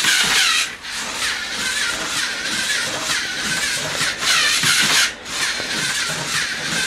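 Lego Mindstorms NXT scorpion robot walking, its servo motors and gear trains whirring steadily, with short pauses about a second in and about five seconds in.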